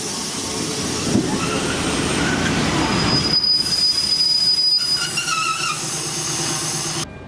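ČD Regionova diesel railcar rolling past close by on a curved track, with a steady rumble of wheels and running gear. A high, thin squeal of wheel against rail is held for about two seconds midway, followed by shorter warbling squeals. The sound drops off suddenly near the end.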